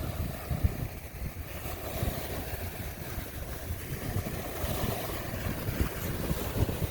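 Wind buffeting the microphone in uneven low gusts over the steady wash of waves on a bay.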